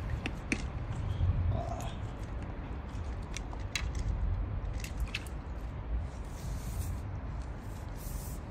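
Landing net being lifted out of a river: water splashing and dripping off the mesh, with scattered sharp clicks and a short hiss near the end, over a steady low rumble.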